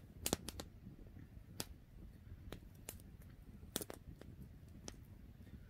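Campfire crackling: burning wood giving off sharp pops at irregular intervals, over a faint low rumble.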